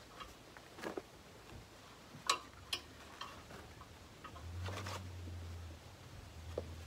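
Scattered light clicks and taps of hydraulic hose fittings being handled and connected at a tractor's control valve, the sharpest about a third of the way in. A low hum comes in for a second or so past the middle.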